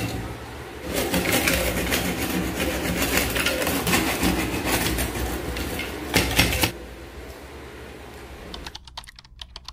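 A knife blade scraping and tapping against a steel plate while carving brittle dalgona sugar candy: a rapid run of scratchy clicks that stops about seven seconds in.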